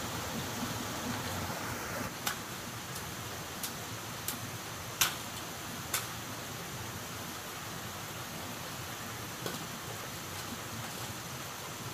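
A handful of sharp knocks of hard objects striking, spaced irregularly, the loudest about five seconds in, over a steady rushing hiss. They are the kind of knocks that stones or tools make in stone-wall work.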